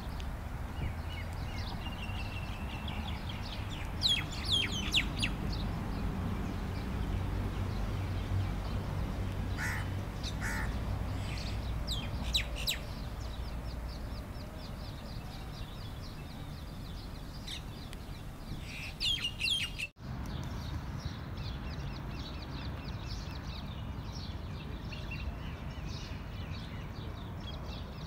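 Wild birds chirping and calling in scattered short bursts, over a steady low background rumble.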